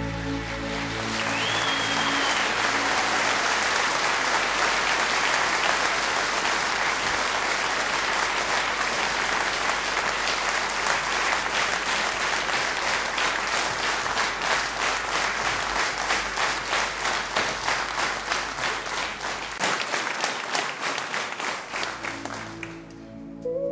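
Audience applauding: dense clapping that thins into separate claps and dies away near the end, with a brief high whistle about two seconds in.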